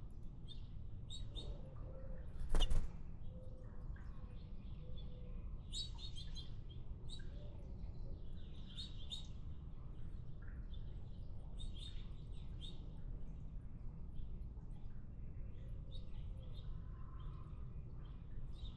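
Small songbirds chirping in short, repeated high twitters over a steady low rumble. A single sharp knock about two and a half seconds in is the loudest sound.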